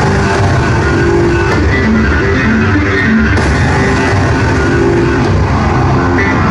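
Loud rock music with distorted electric guitar and a driving drum beat: the dance track playing.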